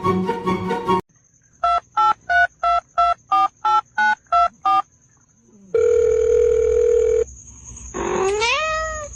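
Telephone keypad tones as about eleven digits are dialed in quick succession, then a steady phone tone lasting about a second and a half. Near the end comes a short rising cat meow.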